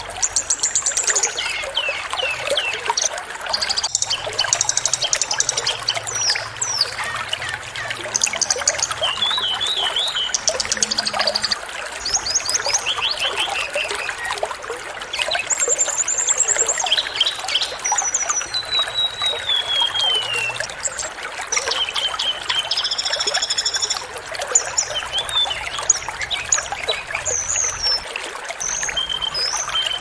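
Small songbirds giving a rapid string of sharp chirps, short trills and falling whistles, one after another with short gaps, over a steady rush of flowing water.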